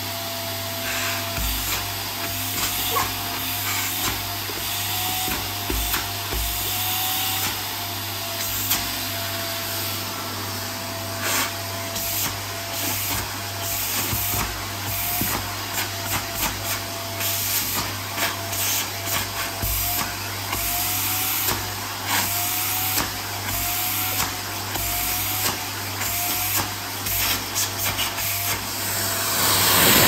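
Canister vacuum cleaner running steadily, a wavering motor whine over a constant hiss, with frequent short rustles and knocks as the hose end is moved over denim jeans and feet. It grows louder near the end.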